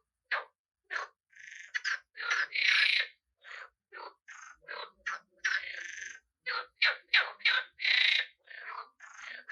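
Frogs croaking: a quick, uneven run of short rasping croaks, several overlapping, with a few longer drawn-out croaks among them.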